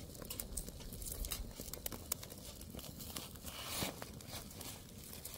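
Faint crinkling of aluminium foil with scattered small clicks, as a foil-wrapped fish is turned and opened on a wire grill over a small wood fire; a brief swish about four seconds in.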